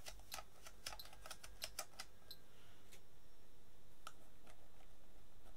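Faint plastic clicking of a Fluke 73 multimeter's rotary selector switch being wiggled and pushed, a quick run of small clicks over the first two seconds and then a few single clicks. The switch is being worked to test whether a bad contact causes the meter's low, unsteady voltage reading.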